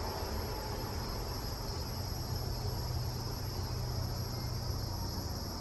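Insects chirring steadily outside in an even, high-pitched chorus, over a low rumble.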